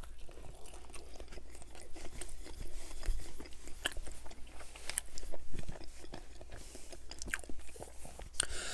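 Close-miked chewing of a mouthful of chicken club sandwich: a bite, then steady chewing with many small crunches and wet mouth clicks.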